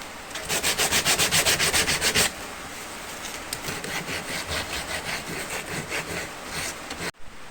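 Rapid back-and-forth strokes of a hand tool rubbing on wood, loud for about two seconds, then lighter, and cut off suddenly near the end.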